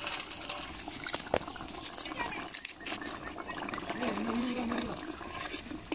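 Small pieces tipped from a plate into a pot of simmering curry, then a metal ladle stirring it, with light pattering and a sharp click about a second and a half in.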